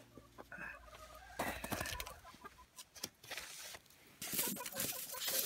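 Hens clucking in short, scattered calls, with some rustling noises in between.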